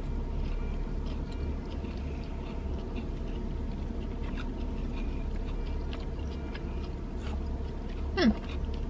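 A person chewing a mouthful of food with small wet mouth clicks, inside a closed car cabin, over a steady low hum. Near the end comes a brief falling hum from the voice.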